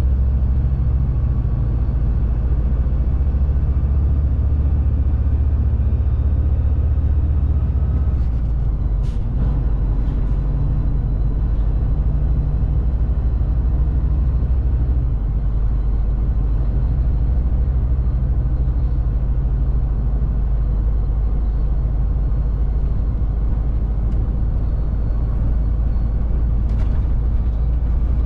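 Engine and road noise of a fully loaded Shacman X3000 heavy truck, heard inside the cab while driving: a steady low drone. The engine note drops about eight seconds in and changes again around fifteen seconds in, with a single short click just after the first change.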